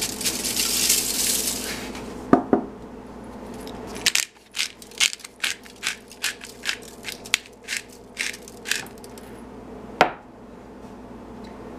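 Salt pouring out of a canister with a hissing rush, then a pepper mill ground over the potato in a run of sharp crunching clicks, about three a second for some five seconds, with a single knock near the end.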